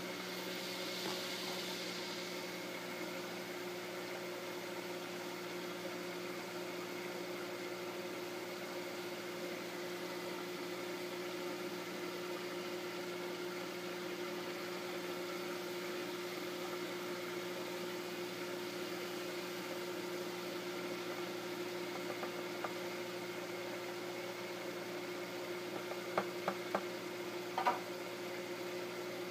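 Kitchen range hood exhaust fan running steadily with a hum. A few light clicks near the end.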